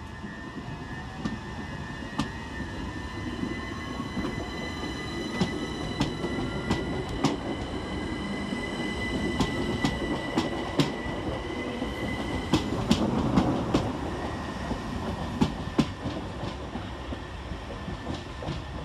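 Southern Class 377 Electrostar electric multiple unit pulling away, its traction motors giving a whine that rises in pitch as it accelerates, over a steady rumble. A steady high squeal from the wheels stops about twelve seconds in, and the wheels click over the rail joints and points.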